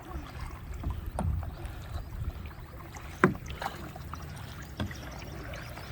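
Kayak paddling on open water: paddle strokes and water splashes, with a few short knocks, one sharp knock about three seconds in. A low rumble of wind on the microphone runs underneath.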